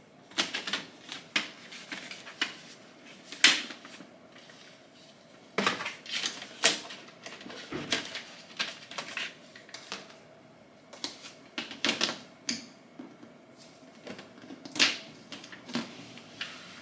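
Hard plastic folding storage box being unfolded and put together: irregular sharp plastic clicks and snaps as its side panels and lid are handled and pressed into place, with short quiet gaps between.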